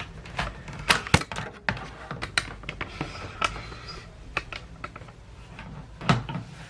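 Irregular light clicks and taps of a small plastic adapter being handled, the loudest about a second in.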